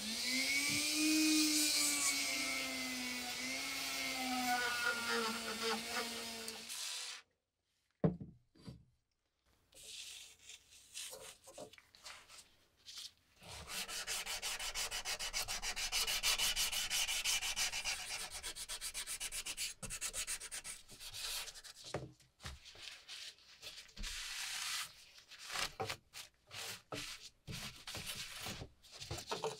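Sanding sponge rubbed rapidly back and forth along a steel pruning-saw blade, a long run of quick scraping strokes, with lighter, scattered rubbing of a cloth wiping the blade near the end. It opens with a long wavering pitched tone lasting about seven seconds, then a short pause.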